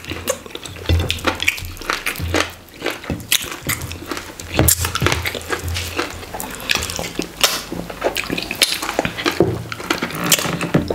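Wet eating sounds of hand-eaten fufu and okra stew: chewing, lip smacks and fingers sucked clean, as many short, irregular wet clicks.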